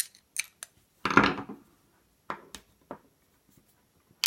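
Scattered clicks and knocks of metal lock parts and a tool being handled while an American 1100 series padlock is taken apart, with one louder, longer clunk about a second in.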